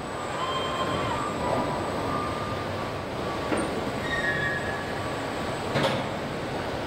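KUKA industrial robot arms at work on a car body: steady machinery noise with short whining tones from the arms' motors, and sharp clunks about two seconds apart.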